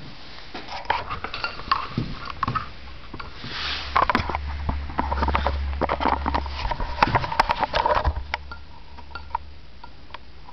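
Espresso machine running: a steady low pump hum for about five seconds, starting after a brief hiss, among clicks and knocks of metal and china being handled.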